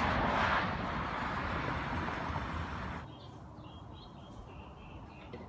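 Street noise from a passing car, a rushing swell that cuts off abruptly about three seconds in. After it, a quieter outdoor background with a few faint bird chirps.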